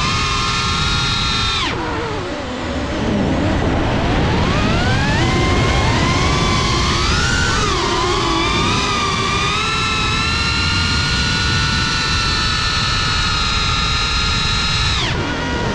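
Whine of a CineLog 35 FPV quadcopter's motors and propellers, picked up by the GoPro riding on it. The pitch falls sharply about a second and a half in as the motors slow, climbs back over the next few seconds, wavers, holds steady, then falls again near the end.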